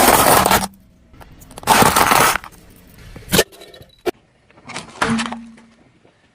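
Objects being crushed under a car's tyres: loud crunching and cracking in several separate bursts, with two long crunches in the first half and sharper single cracks after.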